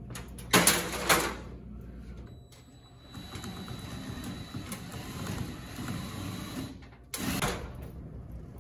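Two loud clanks of an aluminium stepladder being set in place, about half a second apart, then about four seconds of steady mechanical whirring, and another clatter about seven seconds in.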